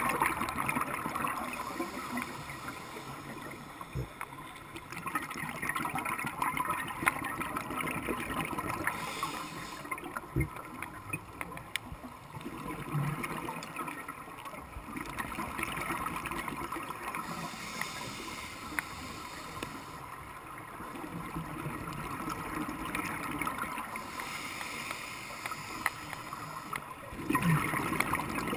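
Scuba diver's regulator breathing heard underwater through a GoPro housing: slow repeating breaths, with exhaled bubbles gurgling and rising every several seconds, loudest near the end.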